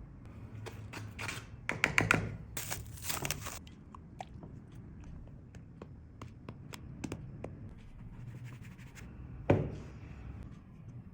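Close-up food-preparation handling sounds: a burst of crunching and scraping about two seconds in, then scattered light clicks and taps, and a single sharp thump near the end.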